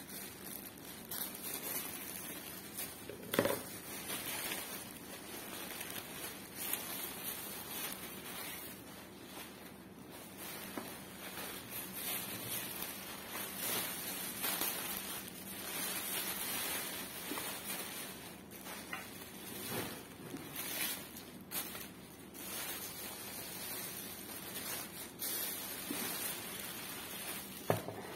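Plastic courier mailer and bubble wrap crinkling and rustling as a parcel is opened by hand, with a couple of sharp knocks, the loudest a few seconds in.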